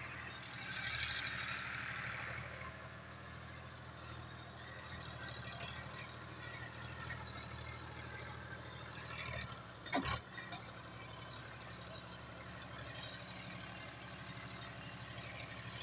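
New Holland diesel tractor engine running steadily at low revs as it hauls a heavily loaded sugarcane trailer. A rush of hiss comes in the first couple of seconds, and a single sharp knock sounds about ten seconds in.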